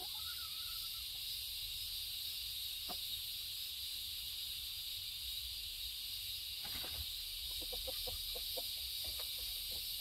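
Steady high-pitched drone of an evening insect chorus of crickets. A string of faint short sounds comes in the second half.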